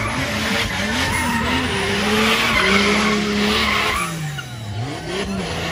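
Drift car's engine revving hard while its rear tyres skid and screech through a smoky slide. About four seconds in the revs fall away and the tyre noise eases, then the engine picks up again.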